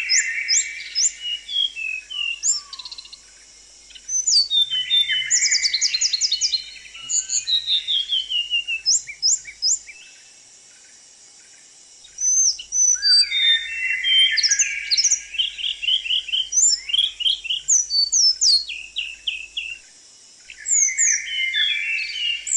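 Small songbird singing in bursts of rapid chirps, quick falling note series and high whistled trills, with short pauses between phrases.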